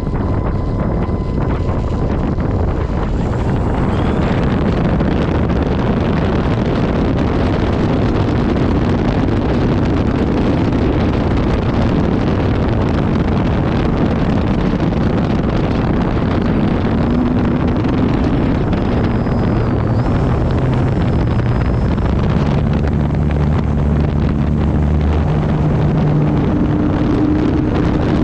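E-flite Turbo Timber Evolution RC plane in flight: heavy wind rush on the tail-mounted action camera's microphone over the hum of its electric motor and propeller. The hum's pitch steps up and down a few times as the throttle changes.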